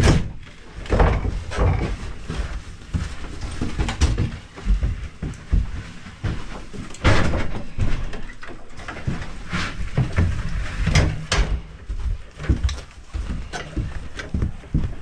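Irregular footsteps with knocks and thumps as fireworks gear is carried and set down.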